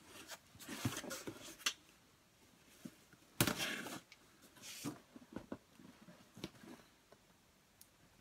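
Knife slitting open a cardboard mailing box: a few short scraping strokes, the loudest about three and a half seconds in, followed by light clicks and knocks of cardboard being handled.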